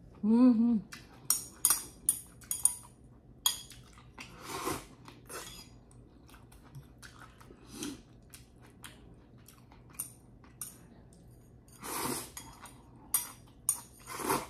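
Metal tongs clinking against a stainless steel pan and ceramic bowl as pasta is served, in scattered sharp clicks, with eating noises: chewing and slurping. A short hummed "mm" comes just after the start.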